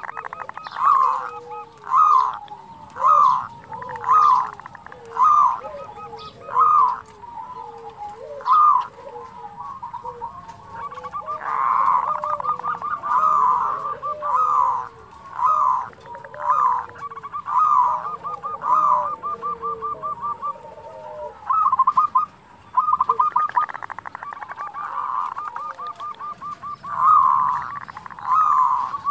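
Zebra dove (perkutut) cooing: short, loud coo notes about once a second. From about eleven seconds in, long rapid rolling trills run with them, the churring 'kerot' and rolling 'bekur' calls.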